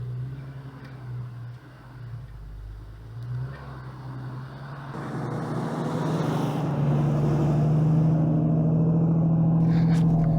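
Jeep Cherokee XJ running on the road, a steady low engine hum that swells much louder from about halfway through.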